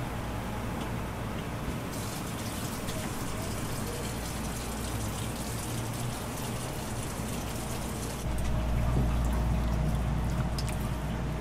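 Eel fillets sizzling and crackling as they grill for kabayaki, brushed with sauce near the end. Under it runs a steady low hum that grows louder about eight seconds in.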